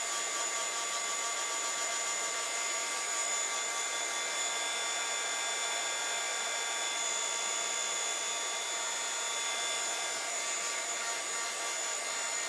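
Craft heat gun running steadily: a constant blowing rush with a high whine, drying wet Distress spray stain on a paper tag. A fainter second whine drops out about ten seconds in.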